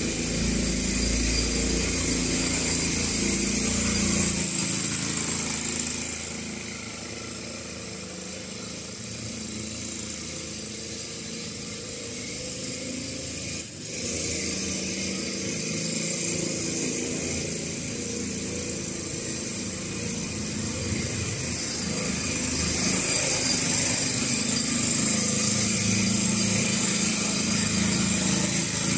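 Small Honda Choi Nori motor scooter's engine running steadily as it is ridden, fading as it moves off after about six seconds and growing louder again as it comes close near the end.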